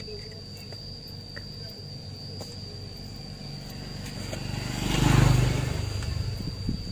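A motor vehicle passing close by: its engine grows louder to a peak about five seconds in, then fades. A steady high insect drone runs underneath.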